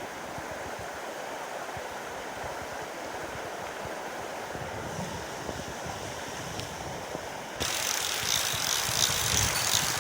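Mountain stream running steadily. About three quarters of the way in, a fast, louder ratchet clicking starts suddenly: a fly reel's click-and-pawl as line is reeled in or pulled off.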